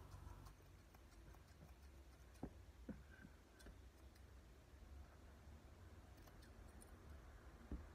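Grooming scissors snipping the synthetic hair of a model dog head: a few faint snips, two clearer ones about two and a half and three seconds in, over a low room hum.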